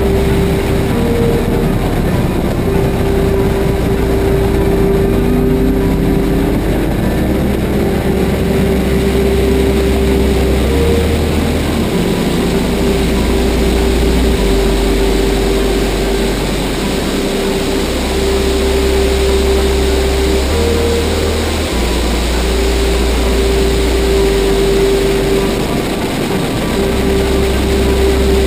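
Onboard sound of the CN-Cobra RS4 race car at racing speed: the engine runs hard under load, mixed with heavy wind rush over the open cockpit. Its pitch climbs a few seconds in.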